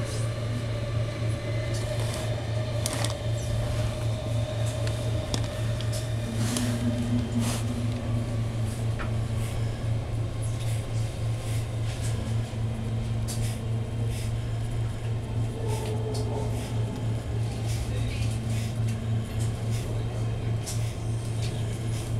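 Running noise inside an electric commuter train carriage: a steady low hum with occasional clicks and rattles, and faint tones that come and go.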